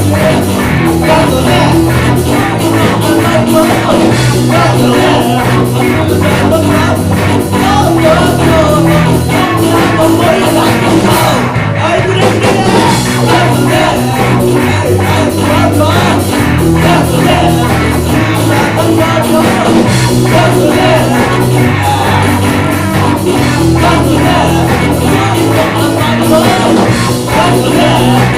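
Live rock band playing a song: drum kit keeping a steady beat under bass and electric guitar, with a singer's voice over it. The top end drops out briefly about twelve seconds in.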